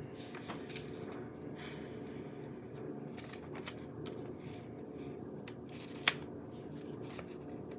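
Quiet handling of a paper instruction leaflet: soft rustles and small ticks, with one sharper tick about six seconds in, over a steady low hum.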